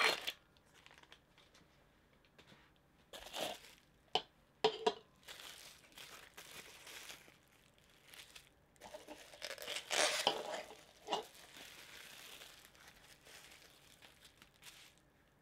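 Bubble wrap crinkling and rustling in irregular bursts as a small figure is unwrapped from it by hand. There are a couple of sharp clicks about four seconds in, and the crinkling is loudest about ten seconds in.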